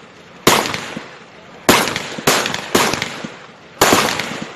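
Gunshots: five single shots at uneven intervals, each a sharp crack whose echo trails off over about half a second.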